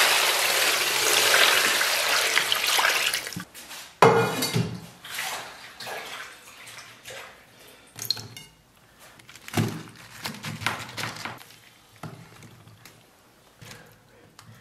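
Water poured from a plastic basin onto cabbage and bok choy in a stainless steel bowl, a steady splash for about three and a half seconds. After a knock about four seconds in come shorter splashes, drips and handling noises as the washed greens are shaken out and laid in a pan.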